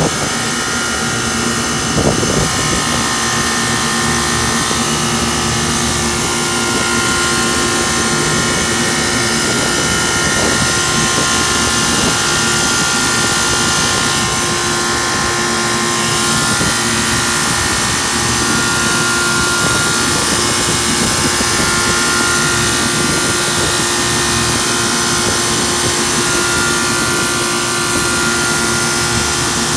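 Lennox rooftop HVAC unit running: a steady mechanical drone of fans and machinery with a constant hum, and a brief knock about two seconds in.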